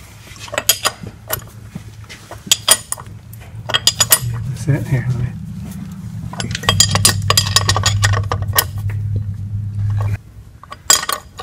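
Metal hand tools clinking and clicking against each other and the car's underbody, many sharp clinks in irregular bunches. Under them runs a steady low hum that gets louder about two-thirds of the way through and cuts off suddenly shortly before the end.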